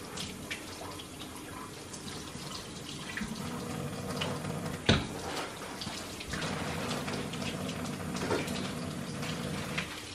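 Kitchen sink tap running, water splashing into the sink, with small clatters and a sharp knock about five seconds in.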